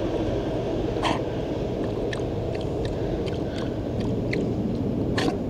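Wind buffeting the microphone of a camera carried on a moving e-bike, a dense low rush with a few light clicks and rattles scattered through it. It cuts off suddenly at the end.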